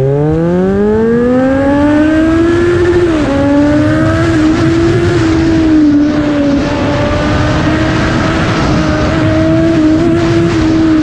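Kawasaki Z900's 948 cc inline-four, breathing through an aftermarket Racefit exhaust, accelerating hard from a launch: the revs climb steeply for about three seconds, dip briefly at an upshift, then stay high and fairly steady before easing off near the end.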